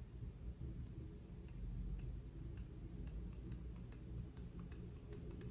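Faint, irregular small clicks, a few a second from about a second and a half in, over a low steady room hum.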